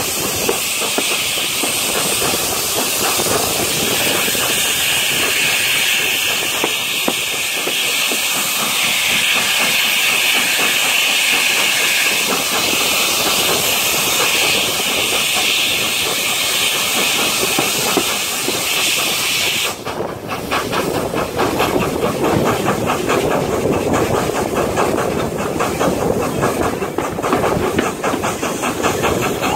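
GWR King-class four-cylinder 4-6-0 steam locomotive 6023 King Edward II working a train, heard from a carriage window: a loud, steady hiss of steam, which cuts off suddenly about twenty seconds in. That leaves a fast, even beat of the locomotive and the carriages running on the track.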